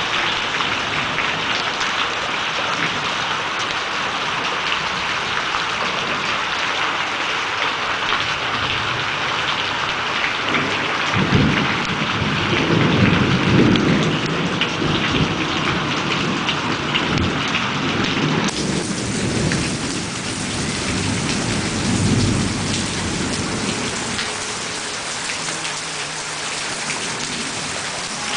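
Heavy rain falling steadily, with a long low rumble of thunder that rolls in about eleven seconds in, swells, and dies away some ten seconds later.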